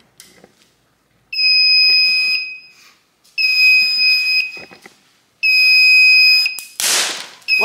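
Electronic fire alarm sounder on a freshly powered Silent Knight SK-4 fire alarm panel, giving three one-second high-pitched beeps about two seconds apart. A brief burst of noise comes near the end.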